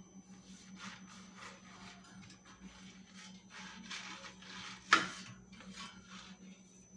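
Silicone pastry brush rubbing oil over a perforated non-stick air fryer basket in repeated quick strokes, with one sharp knock about five seconds in.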